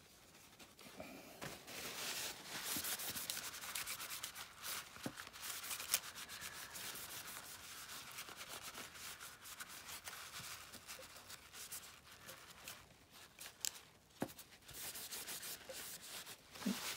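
A white wipe rubbing back and forth over the battery and logic board inside an opened iPhone 8 Plus, mopping up spilled contact-cleaner spray. The scratchy wiping has a short break near the end, then resumes.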